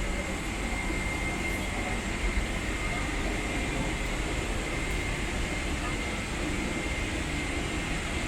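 Steady drone inside a Boeing 777-300 airliner cabin: a deep rumble and even hiss with a thin high steady tone running through it.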